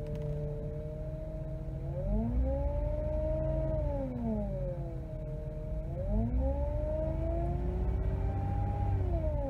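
Toyota power steering pump whining over the idling engine as the steering wheel is turned. The whine rises in pitch twice, about 2 and 6 seconds in, and falls back after each. It is still very noisy after a Lucas power steering repair additive, which has not worked.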